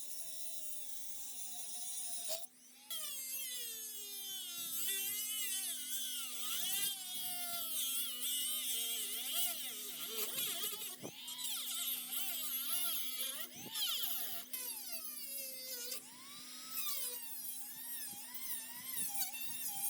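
A small high-speed power tool whining, its pitch wavering up and down as it works, with a steady low hum underneath and a few abrupt cuts.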